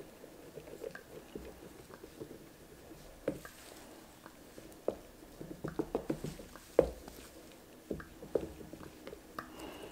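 Faint scattered clicks and taps of a plastic stir stick mixing glitter into resin in a silicone mold, with a quick run of taps a little past the middle.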